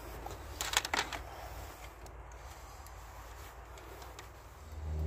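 Handling noise from a multimeter and its test leads: a quick cluster of sharp plastic clicks about a second in, then a few fainter clicks, over a low steady rumble. Near the end a vehicle's engine comes in, running steadily.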